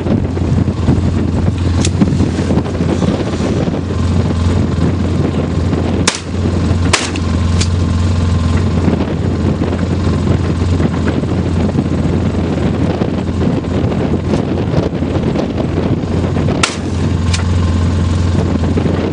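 A vehicle's engine running steadily with a low hum, with several gunshots over it: two or three shots about a third of the way in and two more near the end.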